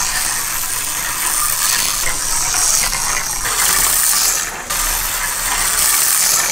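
Micro slot cars racing on a plastic slot track: a steady high-pitched mechanical whirring from their tiny electric motors and gears, with a brief drop about four and a half seconds in.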